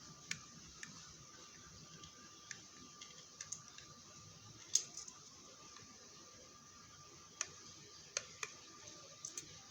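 Scattered light clicks and taps, about a dozen at irregular intervals, as a capacitor wire end is fitted into a small screw terminal board, over a faint steady high hum.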